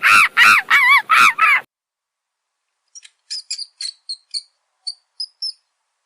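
A bird calling loudly, harsh repeated calls about four a second, which cut off abruptly about a second and a half in. After a gap, a run of short, faint, high-pitched squeaks.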